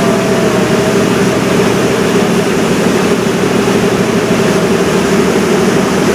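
River cruise boat's engine running with a steady drone, a constant low hum with a steady tone through it.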